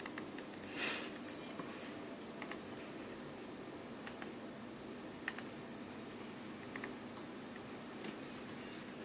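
Scattered short clicks, irregular and about one every second or two, with a brief hiss about a second in, over a low steady hum.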